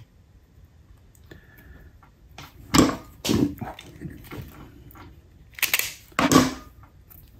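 Wire cutters trimming and stripping thin hookup wire at a workbench: four loud, short snaps in two pairs, about three seconds apart.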